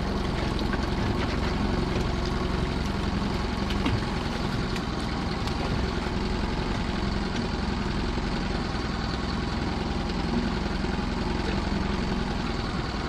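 Small boat's engine idling steadily, a constant low hum, with a few faint knocks from handling the lobster pot.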